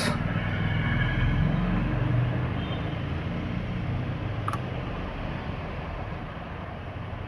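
Road traffic: a motor vehicle going past, swelling in the first couple of seconds and then slowly fading, with a single light click about four and a half seconds in.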